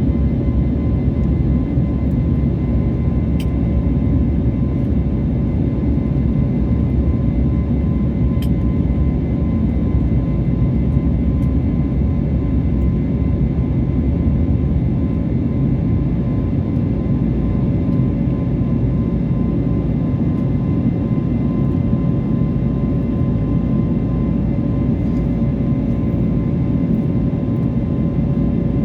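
Jet airliner in flight after takeoff: a steady, even low drone of engine and air noise with a few faint steady whining tones above it.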